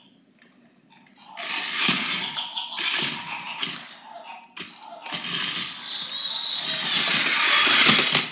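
Remote-control toy robot's motors whirring and its plastic wheels and body clattering on a tile floor. The clatter starts about a second in, comes in uneven bursts, and grows louder toward the end.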